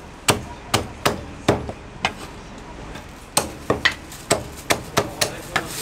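Heavy cleaver chopping roast meat on a thick wooden chopping block: a few sharp chops in the first second and a half, a short pause, then a quicker run of chops from a little past the middle.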